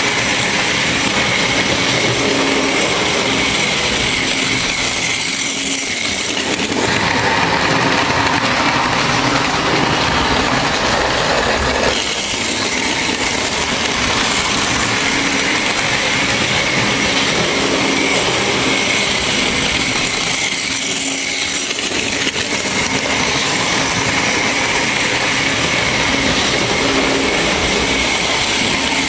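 Märklin model train running on the layout's track: a steady, continuous rumble of the wheels and motor.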